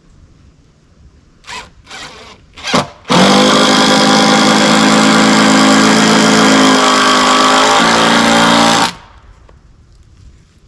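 Power drill driving a timber screw into a log: three short trigger blips, then a steady run of about six seconds that dips slightly in pitch near its end and stops suddenly.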